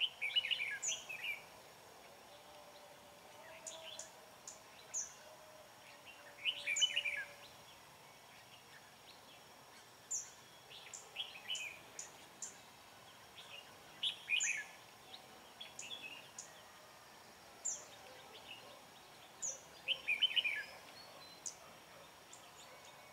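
Red-whiskered bulbuls singing territorial song: short song phrases every few seconds, with thin high chirps in between.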